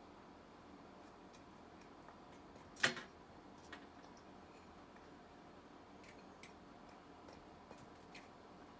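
Faint, scattered clicks and taps of sticky slime and its tubs being handled, with one sharper click about three seconds in.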